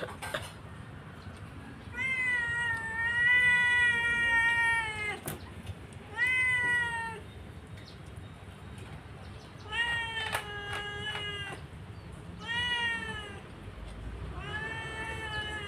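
A domestic cat meowing repeatedly, about five drawn-out meows with long gaps between them, the first lasting about three seconds, and a sharp click about five seconds in.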